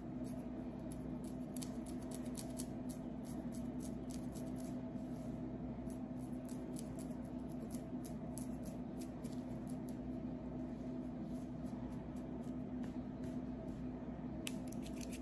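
Fingernails scratching and picking at a dandruff-flaked scalp through hair, close to the microphone: a run of quick, dry crackly scratches, bunched together near the end. A steady low hum runs underneath.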